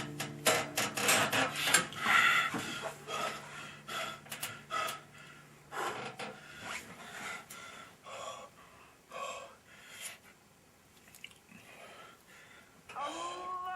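A rapid flurry of sharp knocks and gasping, panting breaths that grow sparser and fainter, with a low held tone underneath at first. A sustained musical note comes in near the end.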